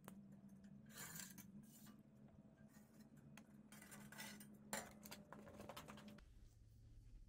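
Faint scraping and a few light metallic clinks as an old rusted footwell panel is handled on a steel sheet and traced around with a marker.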